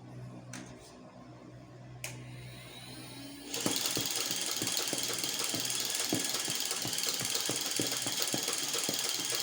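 Dart Zone Adventure Force V-Twin battery-powered belt-fed blaster: a steady motor hum as it revs up, then from about three and a half seconds in a loud, continuous mechanical clatter with regular clicks, about three a second, as it fires darts off the belt.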